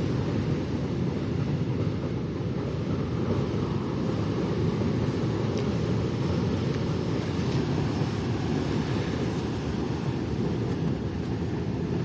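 Freight train of covered wagons rolling past, a steady low rumble with no clear rhythm.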